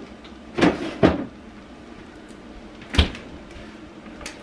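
Refrigerator being rummaged for bottled water: two knocks about half a second apart around a second in as things inside are moved, then a louder, deeper thump about three seconds in, like the fridge door being shut.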